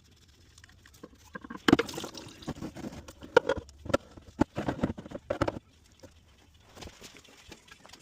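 Tools and parts being handled during hand work on a car: a quick, irregular series of sharp knocks and clicks, clustered from about a second and a half in to a little past the middle, then only faint handling noise.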